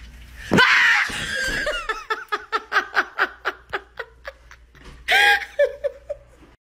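A person bursting into loud, high-pitched laughter. It runs on as rapid ha-ha pulses, about five a second, that gradually fade, then breaks out in a second loud shriek of laughter near the end with a few more short laughs.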